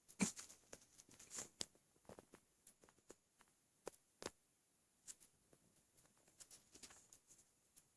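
Faint, muffled hiccups with the mouth kept shut, brought on by drinking a gallon of milk: one just after the start and another about four seconds in, with small clicks and rustles between them.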